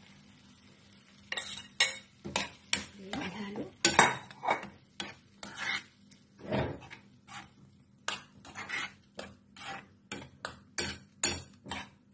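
Metal spoon scraping and knocking against a frying pan while stirring eggs into a tomato and mushroom sauce, in quick strokes about two a second, starting just over a second in.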